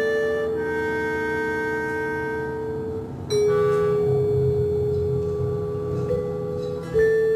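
Vibraphone struck with soft mallets, each stroke left to ring and slowly fade. A fresh stroke comes about three seconds in and another near the end, over a low sustained drone.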